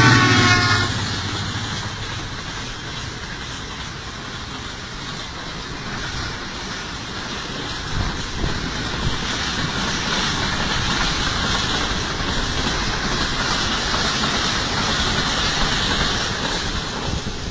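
A horn sounds until about a second in, then a train runs past with a steady noise of wheels on the rails. The noise swells through the middle and eases near the end, with an occasional knock.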